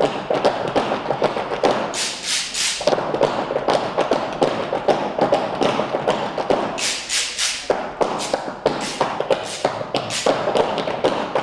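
Tap shoes striking a stage floor in quick rhythmic runs of taps and heavier stamps, with denser, brighter runs about two seconds in and again about seven seconds in.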